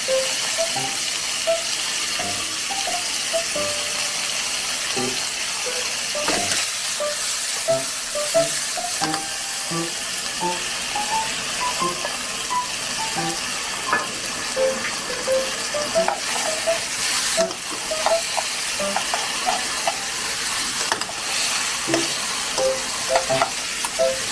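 Sliced sea snail sizzling in oil and sauce in a nonstick wok over a portable butane cassette stove: a steady frying sizzle, with a spatula stirring and tapping against the pan and a few sharper knocks.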